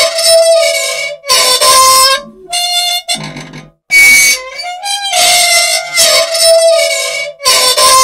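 Loud old machine squealing for want of oil: a run of roughly one-second, reedy, high squeals with short gaps, repeating in the same pattern about every six seconds.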